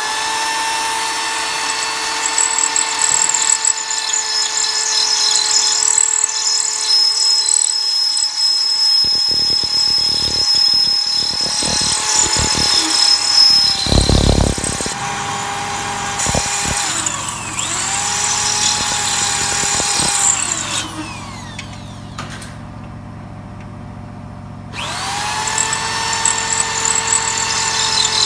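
Electric drill running with a steady whine as it drills out rivets with a 1/4-inch bit; for a few seconds in the middle the bit catches and chatters. Near the end the drill stops for a couple of seconds, then spins back up.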